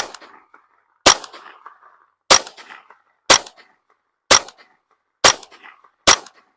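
Ruger 10/22 Takedown .22 LR semi-automatic rifle firing seven shots at a steady pace of about one a second, each a sharp crack with a short fading tail.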